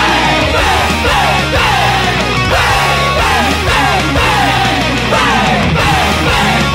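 Instrumental break of a Japanese hard-rock anime theme song: a loud band playing a quick falling melodic phrase that repeats about twice a second over driving drums and bass, with no sung line.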